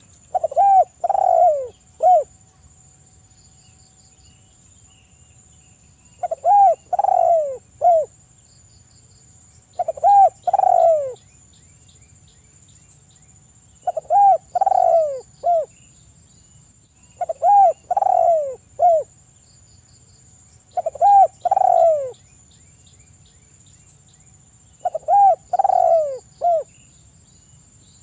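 Spotted dove cooing: a phrase of three or four low, arched hooting notes, repeated seven times at intervals of about three to four seconds.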